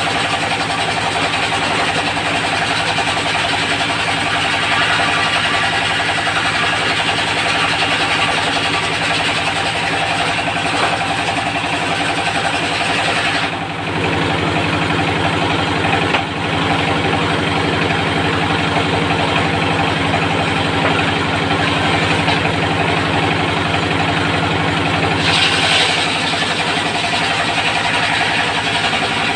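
Diesel engine driving a portable circular sawmill, running steadily under a hiss. About halfway the high hiss drops away suddenly and the engine's low hum comes forward, and the hiss briefly brightens again near the end.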